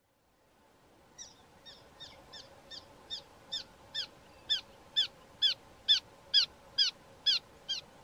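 Bar-throated Apalis calling: a series of about sixteen short, downslurred whistled notes at roughly two a second, growing louder as it goes.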